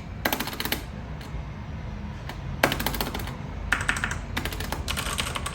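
Keys being typed on a MageeGee 60% mechanical keyboard fitted with Outemu Red linear switches, in four quick runs of clicking keystrokes.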